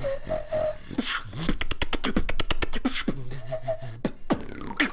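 Beatboxer performing a combo that works in a liquid click roll: a fast run of tongue clicks about a second and a half in, between sharp mouth-made kick and snare hits, short whistle-like notes and a low buzzing bass tone.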